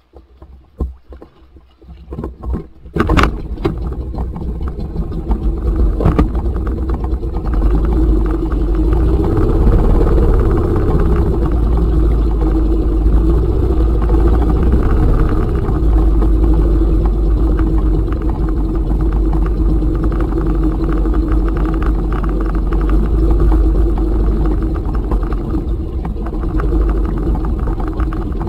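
Tohatsu outboard motor on an inflatable boat starting about three seconds in, then running steadily at low trolling speed, its pitch rising and falling a little.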